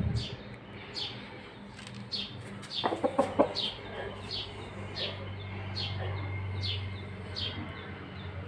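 Chickens calling: short, high, falling peeps repeat about every two-thirds of a second, with a quick run of clucks about three seconds in.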